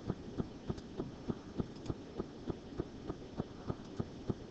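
Computer mouse scroll wheel clicking notch by notch, about three clicks a second, over a faint steady hiss.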